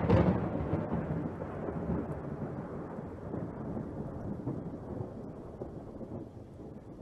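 A thunder clap rumbling and slowly dying away, loudest at the start.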